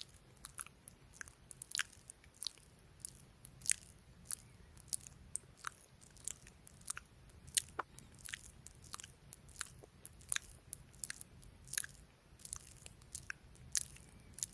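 Close-miked ASMR mouth sounds: quick, irregular clicks and pops of the tongue and lips, several a second.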